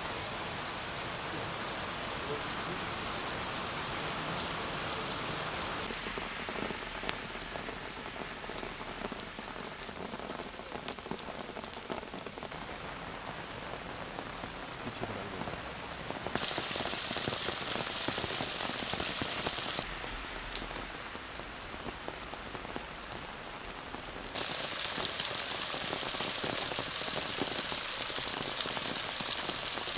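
Heavy rain pouring, a steady hiss that jumps abruptly louder for a few seconds past the middle and again for the last stretch.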